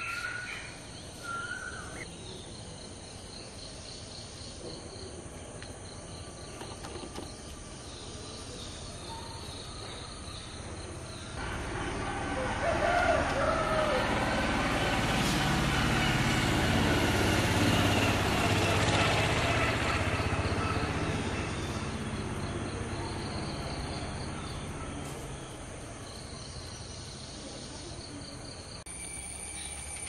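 A passing vehicle. Its broad noise swells from about twelve seconds in, peaks around sixteen to nineteen seconds, and fades by about twenty-four seconds. Under it are steady high insect buzzing and a few short warbling bird calls near the start.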